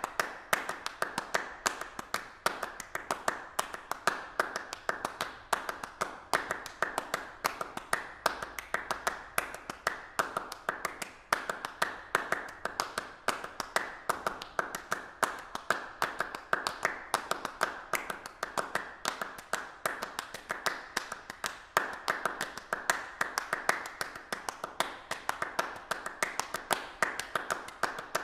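A steady stream of sharp, irregular clicks or taps, several a second, without pause.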